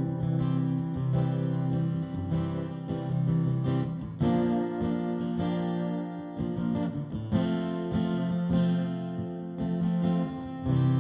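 Acoustic guitar strummed in a slow gospel song, its chords changing a few times.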